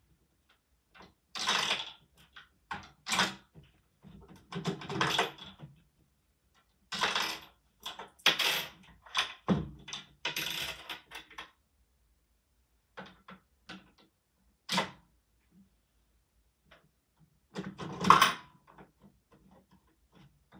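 Plastic Lego bricks clicking and rattling as hands handle the brick-built candy machine and pull pieces off to open it up. It comes in several bursts of clattering with short pauses, the loudest near the end.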